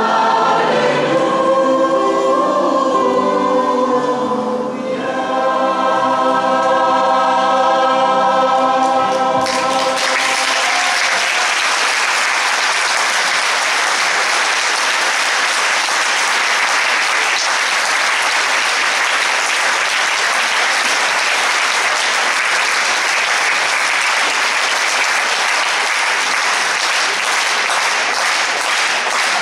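Mixed-voice choir singing the closing phrases of a song, ending on a held chord; about ten seconds in, audience applause breaks out and carries on steadily.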